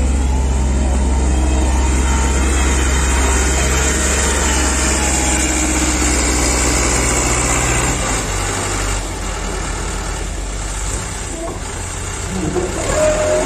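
XCMG LW180K wheel loader's diesel engine running steadily and loudly. About eight seconds in, the deep engine note drops away and the sound gets quieter.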